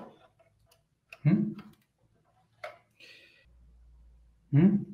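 A man's voice in two short utterances, about a second in and again near the end, with quiet pauses between them.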